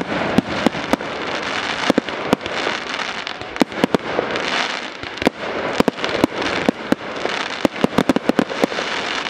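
Professional fireworks display: a fast, irregular string of sharp bangs from shells bursting, over a continuous hiss of rising comets and burning effects.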